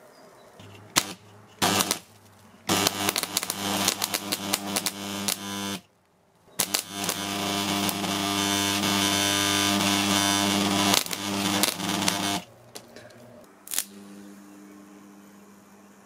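Microwave oven transformer spot welder with its secondary shorted through a metal strip: the transformer hums loudly under the heavy current while the electrode contacts crackle and spit sparks. It is switched on in short bursts over the first few seconds, cut off briefly about six seconds in, then runs steadily until about twelve seconds in.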